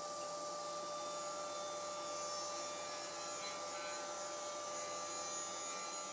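Sliding-table panel saw running with its blade spinning, a steady whine with no cut being made.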